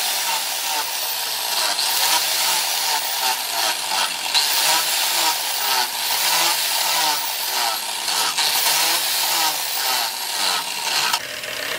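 Electric angle grinder with an abrasive disc grinding the metal ferrule at the joint of a knife blade and its bamboo handle: a steady motor whine under loud grinding noise that rises and falls as the disc bears on the metal. Near the end the grinding eases off while the motor keeps running.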